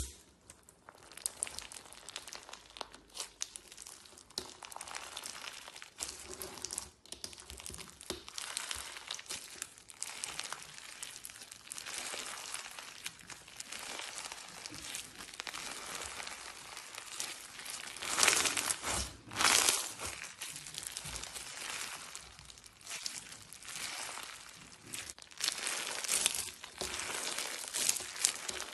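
Clear slime being squeezed and worked by hand, with continuous crackling, crinkling pops and two louder bursts about two-thirds of the way through.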